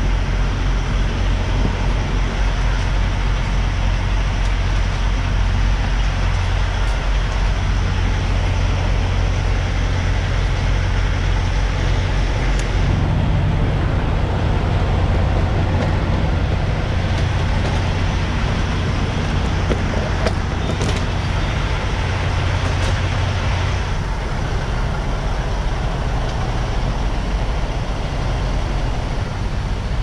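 Semi-truck driving, heard from inside the cab: a steady low engine drone with road noise over it. The engine note changes about twelve seconds in and again about twenty-four seconds in.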